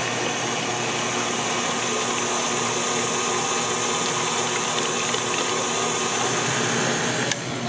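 Electric stand mixer running steadily, its wire whisk beating cake batter in a stainless steel bowl. It gives a continuous motor hum and whine, and the high whine drops out near the end.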